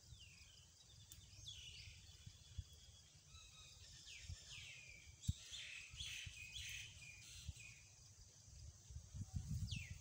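Mynas calling: repeated short, downward-sweeping whistled calls and chatter, thickest from about four to seven seconds in, over a faint low rumble with a few soft knocks.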